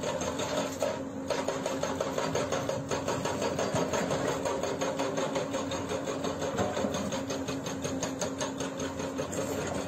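Hydraulic breaker hammer on a Hyundai crawler excavator pounding rock in rapid, even blows, over the steady hum of the excavator's diesel engine.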